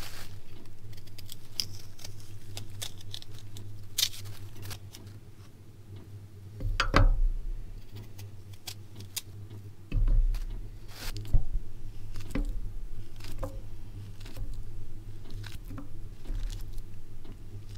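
Fruit being sliced and laid out on a plate: scattered small clicks and taps of a knife and fruit pieces against the plate, with a plastic bag rustling. Two duller thumps come about a third and just over halfway through, over a steady low hum.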